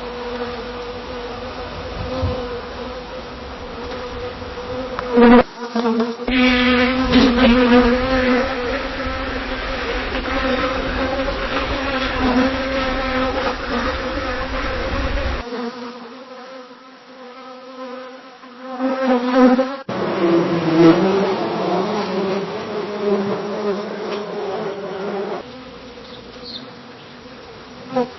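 Bees buzzing in flight around flowers, a humming wingbeat tone that wavers in pitch and swells as a bee passes close. It comes as separate recordings joined with abrupt cuts about every ten seconds.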